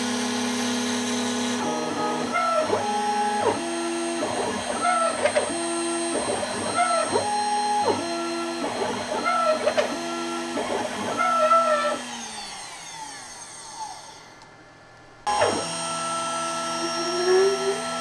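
CNC router spindle whining as a tapered ballnose bit cuts a pocket in walnut, with a tone that rises and falls in pitch again and again as the machine moves through its passes. About twelve seconds in the whine sinks in pitch and the sound drops away, then the machine sound comes back abruptly near the end.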